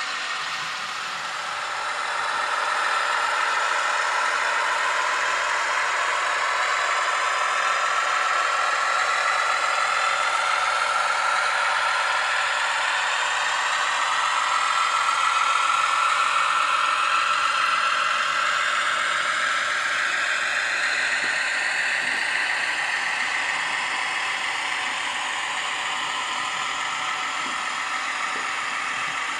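Piko H0 model Kaluga diesel shunter running, a steady whir with rattling. Its pitch slowly falls and then rises again over the stretch.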